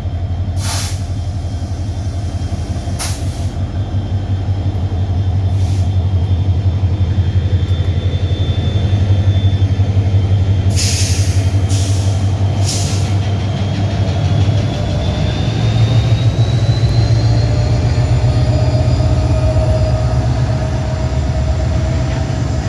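Babaranjang coal train rolling past close by: a steady heavy rumble and rapid clatter of wagon wheels on the rails, with several sharp clanks and a faint whine that rises in pitch past the middle.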